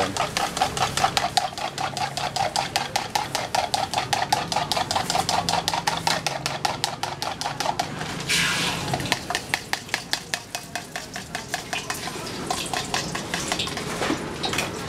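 Rapid metallic clatter of a steel spatula working a wok, about five strikes a second. About eight seconds in there is a sudden burst of sizzling as oil is poured into the hot wok, then the clatter goes on, sparser, with frying underneath.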